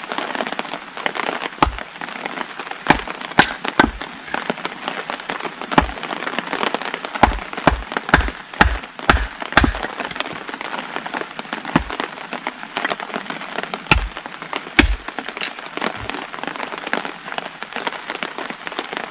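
Short-handled axe splitting wet sticks on a wooden stump: about fifteen sharp knocks at an uneven pace, with a quick run of half a dozen in the middle. Steady rain patters underneath.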